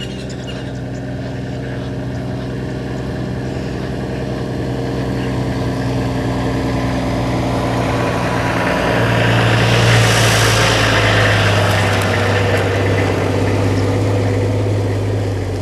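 Open safari game-drive vehicle driving past on a dirt track: a steady engine hum grows louder as it approaches, with tyre and road noise swelling to a peak about ten seconds in, then easing as it moves off.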